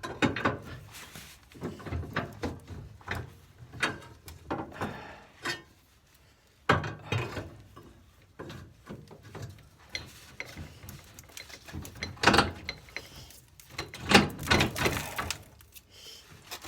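Irregular clunks, knocks and scraping of metal lawn tractor parts being handled and shifted during dismantling, with the loudest knocks about 7, 12 and 14 seconds in.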